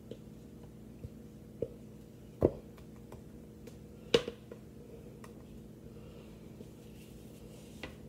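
Short, sharp knocks and taps of a utensil against a plastic mixing bowl as thick cake batter is worked out of it into a pan. The two loudest knocks come about two and a half and four seconds in, over a faint steady hum.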